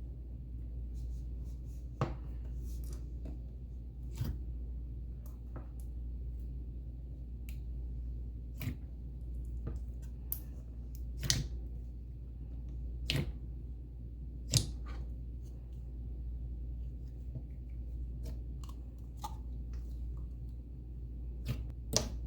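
Scattered sharp clicks and taps from handling a slime kit's plastic containers and packaging, about a dozen in all, irregularly spaced, over a steady low hum.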